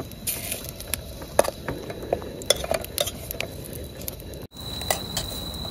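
Soya chaap frying in oil in an aluminium pot, with metal tongs and a fork clinking against the pot as the pieces are turned: a low sizzle under several sharp metallic clinks.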